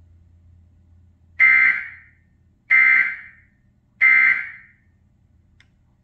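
Emergency Alert System end-of-message data bursts: three short, screechy digital tone bursts about 1.3 seconds apart, marking the end of the alert. They play through a TV's speakers and ring briefly in the room after each one.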